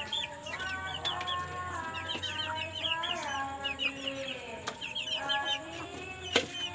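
Young chickens, about two months old, peeping and clucking over one another in a rapid string of short high chirps and longer calls. A sharp click stands out about six seconds in.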